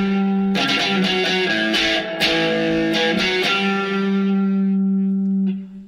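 Instrumental break in a Greek pop song: guitar chords strummed over held notes, fading away near the end.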